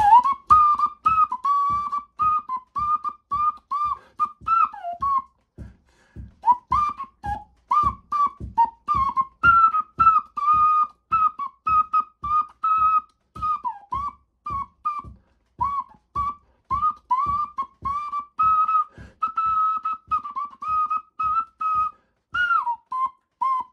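Hand whistle: a man blowing into his cupped hands, making short, ocarina-like whistled notes in a quick rhythmic tune, two or three notes a second with a puff of breath at each. The tune breaks off briefly about five seconds in, then carries on.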